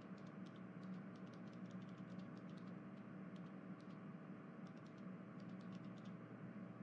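Near silence: faint steady room hum with scattered faint ticks.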